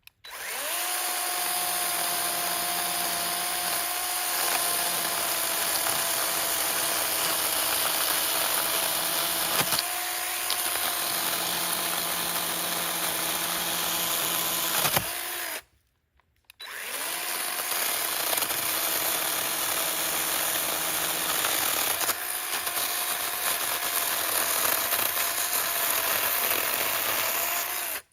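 Chainsaw running at a steady high pitch while cutting wood. It revs up in the first second, cuts out about halfway for roughly a second, then runs again.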